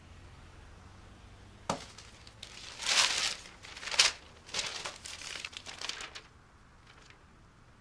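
A newspaper rustling and crackling as its pages are handled and opened out, in a run of strokes over about four seconds, loudest in the middle.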